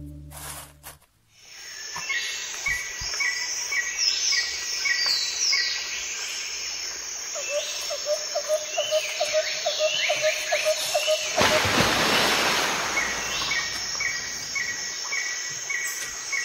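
Birdsong ambience: repeated short chirps and falling whistled calls over a steady hiss, starting about a second in as the earlier music fades out. A brief rush of noise, like a gust or a wave, sweeps through about two-thirds of the way in.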